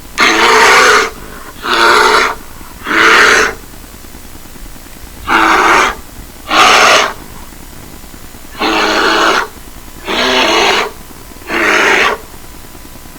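Repeated animal calls: eight loud calls, each lasting under a second, coming at uneven gaps of about a second.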